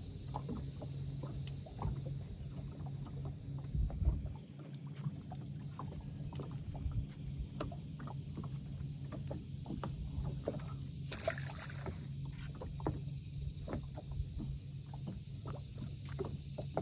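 Electric trolling motor humming steadily at the bow of a bass boat, with small waves tapping and lapping against the hull. A brief hiss about eleven seconds in.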